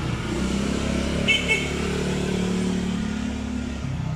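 Motor vehicle engine running with road-traffic noise, a steady low hum whose pitch shifts slowly; a short high-pitched beep sounds about a second and a half in.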